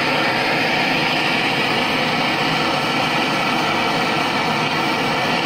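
Handheld gas torch burning with a steady hiss, its flame held on a Delft clay mold to keep it hot for a silver pour.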